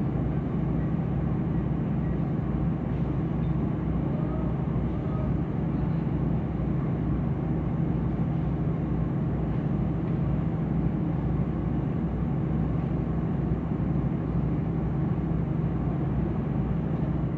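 KAI CC 201 diesel-electric locomotive idling at a standstill, its engine giving a steady, unchanging low drone.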